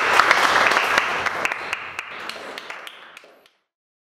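Audience applauding, a dense patter of many hands clapping that fades out and stops about three and a half seconds in.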